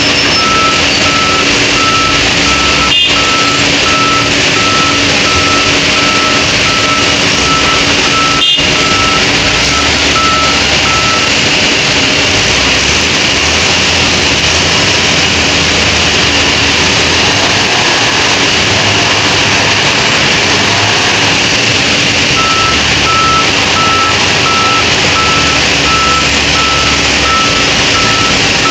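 Wheel loader's diesel engine running under load, with its reversing alarm beeping steadily for the first ten seconds or so and again over the last six seconds as the loader backs up. Two sharp knocks come about three and eight seconds in.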